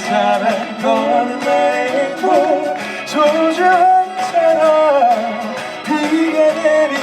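Live pop song performance: vocals singing a melodic chorus line over amplified backing music.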